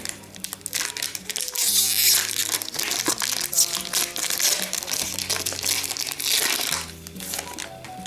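A shiny trading-card pack wrapper crinkling and crackling as it is torn open and the cards are slid out, loudest about two seconds in. Background music with steady low bass notes plays underneath.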